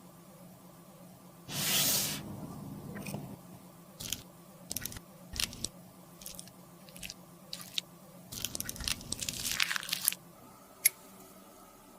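Crunching, scraping and small sharp clicks of cosmetics being worked by hand during a makeup repair. There is a loud noisy burst about two seconds in, and a dense run of crackling scrapes near the end.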